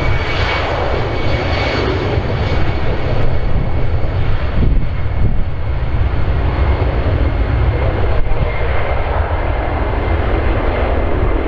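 The twin jet engines of an easyJet Airbus A320-family airliner at takeoff power, loud and steady, with a high whine held above the rumble.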